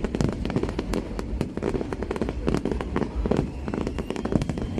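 Fireworks display going off: a dense, rapid run of bangs and crackles, many per second, with no pause.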